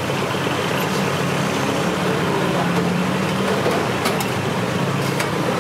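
Steady low rumble of street traffic with a hum underneath, and a few light clicks about four and five seconds in.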